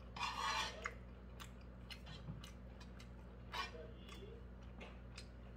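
Close-up mouth sounds of chewing a pan-fried chive dumpling, with scattered light clicks and a brief louder whoosh about half a second in.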